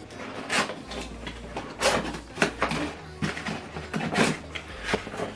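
Cardboard packaging box being handled and pulled open: several short scrapes and rustles of cardboard sliding against cardboard.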